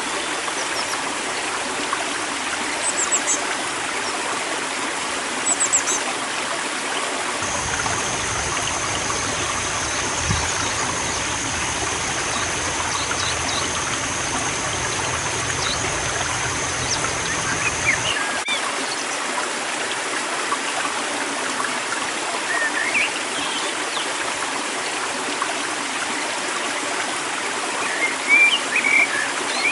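Stream running steadily, with small birds giving a few short high chirps. A thin steady high whine sounds for about ten seconds in the middle.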